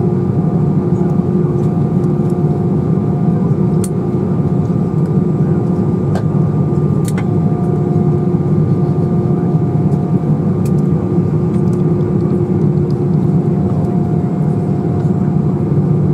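Airbus A320 cabin noise while taxiing, heard from a window seat over the wing: the jet engines at idle give a steady low rumble with a few constant tones running through it.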